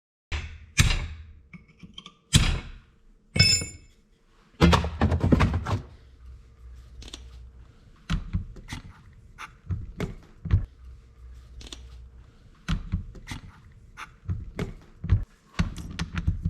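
Irregular metal clunks and knocks from hand tools and differential parts being handled and set down on a workbench, one of them ringing like struck steel.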